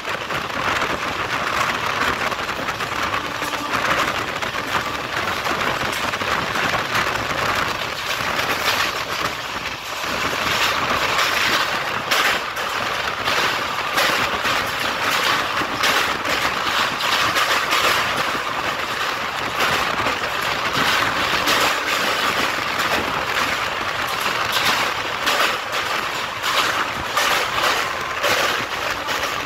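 Moving passenger train heard from an open coach window: a steady rush of wind and wheel-on-rail rolling noise, with many short clicks and knocks from the wheels running over the track.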